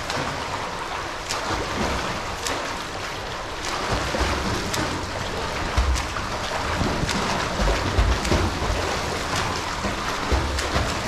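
A swimmer doing front crawl in a pool: continuous splashing from the flutter kick and arm strokes, with a sharper splash about once a second as an arm enters the water.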